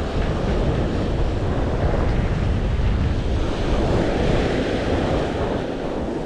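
Strong wind buffeting the microphone over the steady wash of ocean surf.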